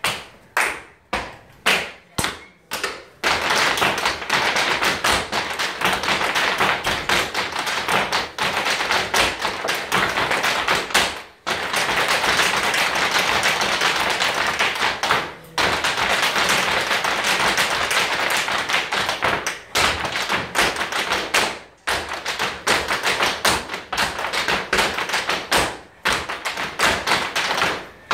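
Irish dancers clapping in unison, about two or three claps a second, then the fast clatter of their hard shoes striking a wooden floor, with a few brief breaks in the stepping.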